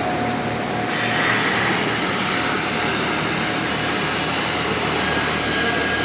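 Electric arc welding: the arc gives a steady, loud crackling hiss that grows brighter about a second in.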